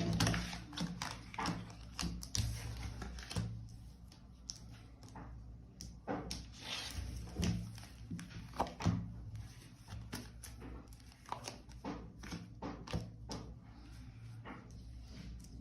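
Tarot cards being handled and laid down on a table: irregular light taps and soft thunks, several of them close together.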